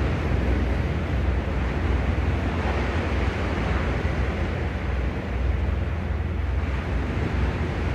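Sea waves washing steadily against the shore, with wind rumbling on the microphone.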